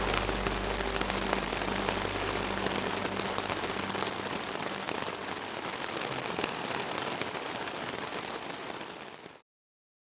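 Rain falling and pattering steadily, a dense hiss of tiny drop ticks, with the last tones of soft music fading out in the first few seconds. It cuts off suddenly to silence near the end.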